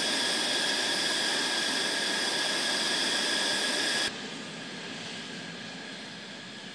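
F-16 fighter jet engine running: a steady high whine over a loud rush of jet noise. About four seconds in it cuts abruptly to quieter, more distant jet noise that slowly fades.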